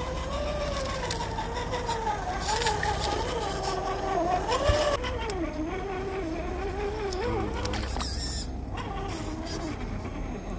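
Electric motor and gearbox of a 1/10-scale RC rock crawler whining as it crawls over rock, the pitch wandering up and down and easing off about eight seconds in, with a few clicks of tyres and chassis on stone.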